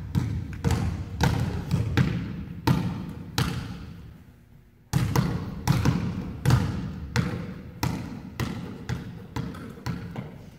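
Basketballs bouncing on a hardwood gym floor as young children dribble at an uneven pace, each bounce echoing in the hall. The bouncing dies down about four seconds in and picks up again a second later.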